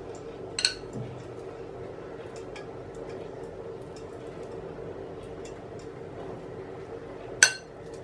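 Steel spoon scraping soft gram-flour dough around a glass bowl, with a few light clinks against the glass and one sharp, ringing clink near the end.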